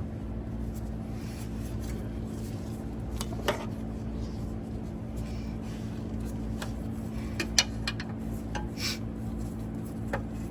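A few sparse metallic clinks and taps of tools and hardware as a nylon lock nut is fitted onto a bus seat shock's mounting bolt, over a steady low hum.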